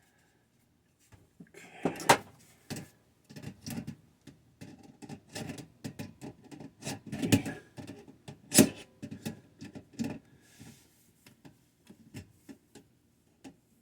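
Irregular clicks, knocks and rubbing of hand work on a water pressure switch's wiring and nut, with two sharper knocks, about two seconds in and a little past the middle.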